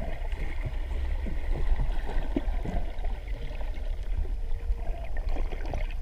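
Muffled underwater sound heard through a submerged camera while snorkelling: a steady low rumble of moving water with scattered bubbling crackles.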